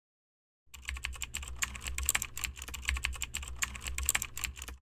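Computer-keyboard typing sound effect for text being typed out on screen: rapid, uneven key clicks that start just under a second in and stop abruptly near the end.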